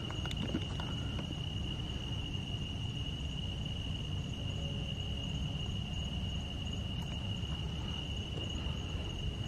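Steady chorus of crickets, a continuous high trill that does not change, over a low steady rumble.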